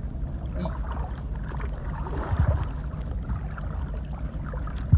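Water sloshing and swishing as someone moves through shallow flooded water, over a steady low wind rumble on the microphone; heavier sloshes come about halfway through and at the end.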